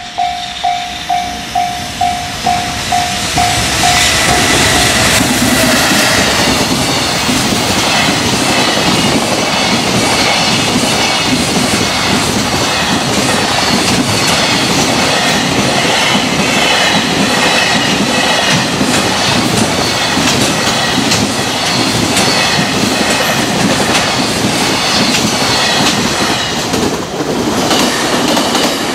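Level-crossing warning bell ringing about twice a second, soon drowned out as a long container freight train passes close at speed, its wheels clicking over the rail joints. Near the end a second freight train, the Super Rail Cargo electric freight unit, is passing.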